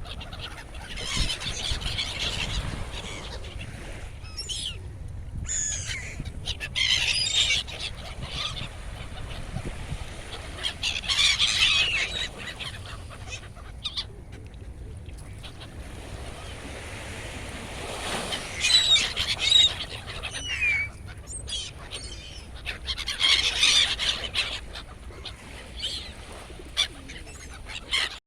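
Gulls crying in a flock: about five bouts of shrill, overlapping calls, spread across the whole stretch, over a steady low rumble of the winter sea.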